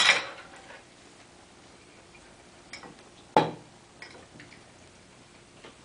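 Cutlery and dishes at a dinner table: a couple of faint ticks and one sharp clack about three and a half seconds in, otherwise quiet.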